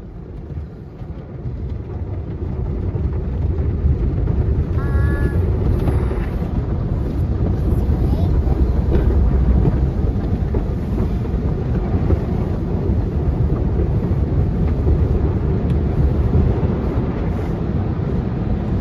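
Automatic car wash running over the car, heard from inside the cabin: a steady, loud rumble of water and brushes that builds over the first few seconds and then holds.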